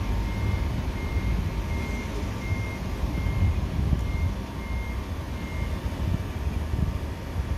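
A vehicle's reversing beeper: a short high beep repeating about one and a half times a second, stopping about six seconds in, over a low background rumble.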